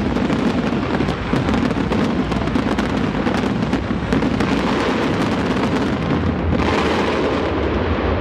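Fireworks display at full barrage: many overlapping bangs and crackles merge into one continuous din. A brighter hissing rush rises about six and a half seconds in.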